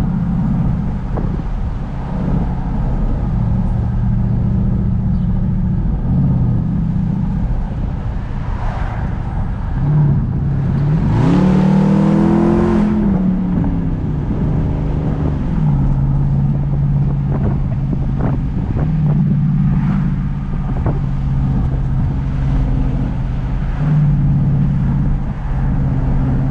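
Straight-piped Jeep SRT V8 exhaust, loud and steady while driving, shifting up and down in pitch a few times. About eleven seconds in the engine revs up hard under throttle for a couple of seconds, the loudest moment, then falls back to a steady drone.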